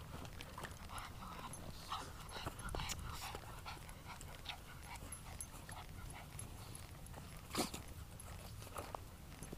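A dog on a walk whimpering and panting, over footsteps and scuffing ticks on a gravel path. There is one sharp knock about three quarters of the way through.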